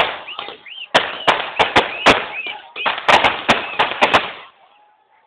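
A rapid, irregular string of firecrackers bursting with sharp bangs, several to a second, with crowd voices between them; the bangs stop about a second before the end.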